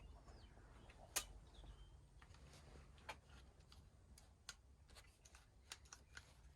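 Scattered small clicks and taps of the lawnmower's new plastic handle lever and its spring being handled and fitted, one sharper click about a second in, the rest faint.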